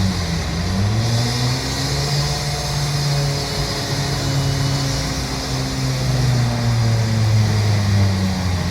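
An engine running steadily, its pitch dipping and climbing back about half a second in and again near the end.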